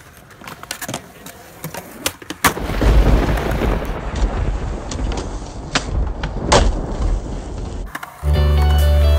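Skateboard on a concrete skatepark: sharp clacks of the board's tail and wheels hitting the ground, then a rough rolling rumble of the wheels with a couple more loud cracks. Music with a steady beat comes in near the end.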